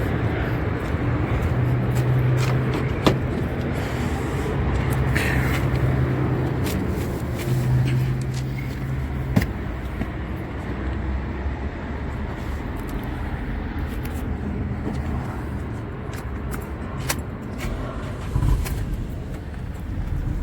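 Car engine running steadily, with scattered sharp clicks and knocks over it.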